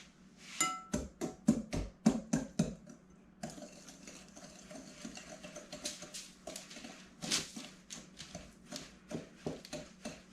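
A utensil beating eggs into sugar in a mixing bowl: a quick run of knocks against the bowl for the first few seconds, then softer, steadier mixing with scattered clicks.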